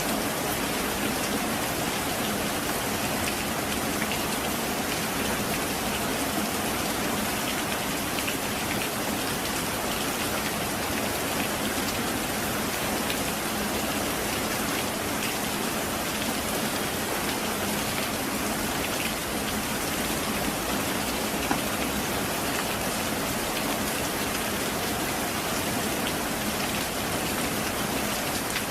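Heavy rain falling steadily: a dense, even hiss of drops with faint scattered taps.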